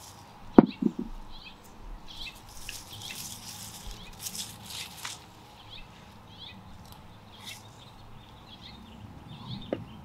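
Hands digging and rustling through loose soil in a raised garden bed while harvesting potatoes, with a sharp knock about half a second in and a smaller one near the end. Faint bird chirps in the background.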